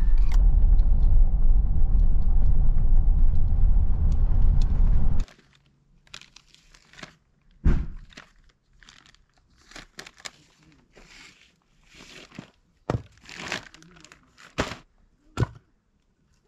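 Steady road and engine rumble inside a moving car's cabin, cutting off about five seconds in. Then rustling and crinkling of a firewood bag being opened, with several sharp knocks as split logs are set down on the ground.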